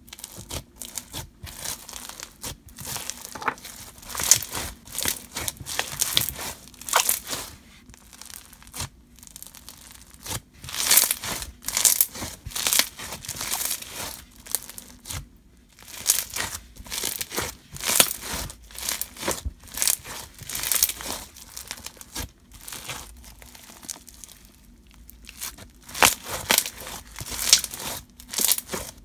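Clear slime packed with Bingsu beads being squished and stretched by hand, giving an irregular run of crunching and crackling, in louder and quieter spells.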